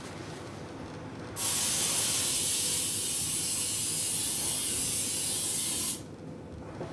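Aerosol can of Bama Power Protector shoe-protector spray hissing in one continuous burst of about four and a half seconds, starting suddenly about a second and a half in and cutting off sharply.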